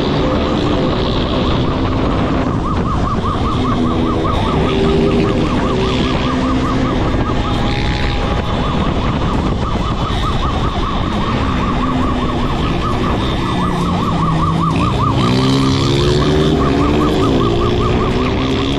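A police siren wailing in a fast, steady warble throughout, over a motorcycle engine that revs up and down as it rides.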